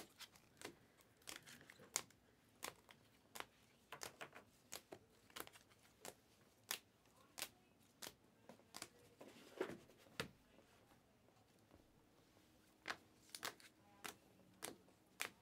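Panini Prizm basketball cards in clear plastic sleeves flipped one at a time through a stack, giving faint irregular clicks and slides about one or two a second.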